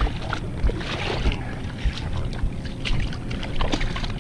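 Handling noise from a body-worn camera rubbing against a jacket, with a low thump about every two-thirds of a second and scattered light clicks. Behind it is a steady wash of river water at the bank.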